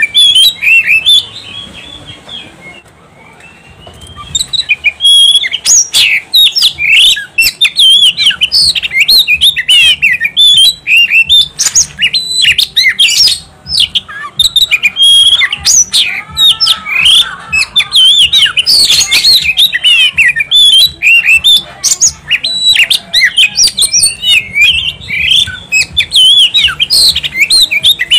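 Oriental magpie-robin singing vigorously: a fast, almost unbroken stream of varied short whistles and chirps, with a brief lull about two to four seconds in.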